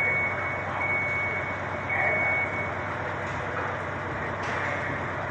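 A vehicle's reversing alarm beeps one high steady tone about once a second and stops about halfway through, over a steady background of street and work noise.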